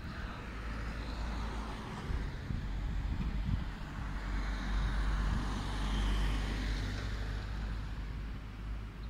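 Road traffic passing on a city street: a car and then a van drive by, the engine and tyre noise swelling to its loudest around the middle and easing off near the end.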